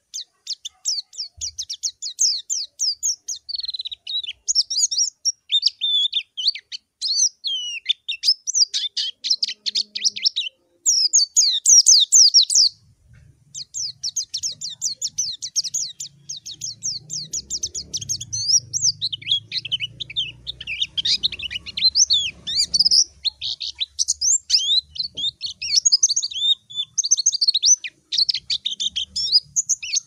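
White-eye (pleci) singing a rival-calling song: a long run of rapid, high chirps and warbling trills, breaking off briefly about 11 and 13 seconds in.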